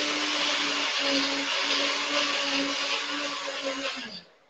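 Nutribullet high-speed blender running steadily, grinding oat cakes, pecans and almonds towards a powder. Its motor tone sinks in pitch as it winds down, and the blender stops about four seconds in.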